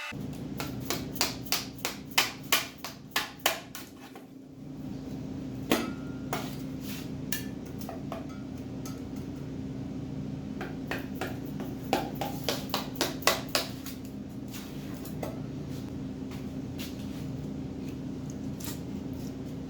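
Hammer blows on metal: a run of sharp strikes, about three a second, in the first few seconds and another run about twelve seconds in, with a few single knocks between.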